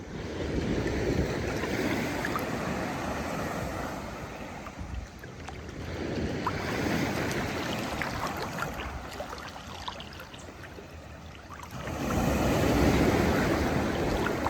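Small sea waves washing in and breaking against a rock, three surges of rushing water about five to six seconds apart.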